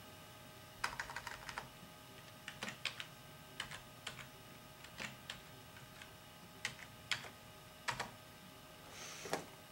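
Faint typing on a computer keyboard: irregular key clicks, some single and some in quick clusters, with short pauses between them.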